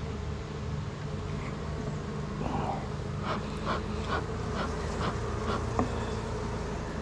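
Honeybee colony buzzing steadily around an open hive. About halfway through comes a quick run of short clicks, roughly two a second, for a few seconds.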